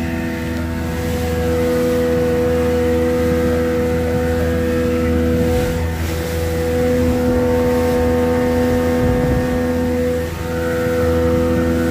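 Tohatsu M70C 70 hp two-stroke outboard running steadily at speed, pushing the boat along. It makes a steady hum with several held tones over a wash of noise, and dips briefly near the end.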